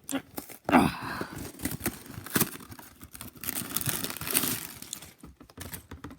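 Lego set packaging being torn open and crinkled: irregular tearing and crackling with many sharp snaps, loudest about a second in and near the middle.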